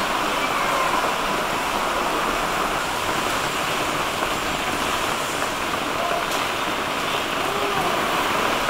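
Heavy artificial rain shower, the scheduled 'squall' in an indoor tropical bird hall, pouring down onto leaves and plants as a steady, unbroken hiss.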